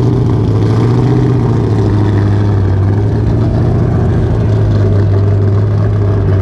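An engine held at a steady speed, a loud, unchanging low drone.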